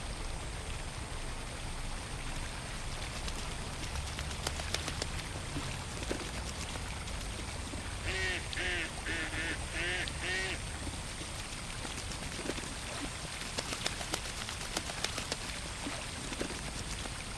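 Ducks quacking, a run of about four quacks in the middle, over a steady low rumble of pond ambience with scattered light ticks.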